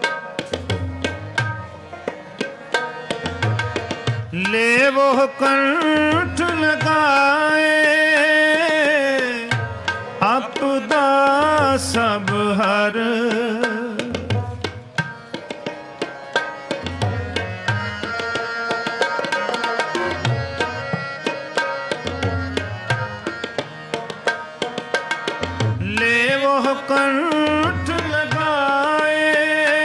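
Sikh kirtan: tabla playing a dense, steady rhythm under sustained harmonium notes. A male voice sings long, ornamented drawn-out lines of the hymn from about four seconds in to about fourteen seconds, and again near the end.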